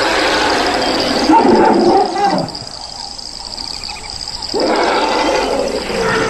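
African elephants calling: two long, loud calls, the first falling in pitch as it ends about two seconds in, the second starting about four and a half seconds in. A steady, high insect drone runs underneath.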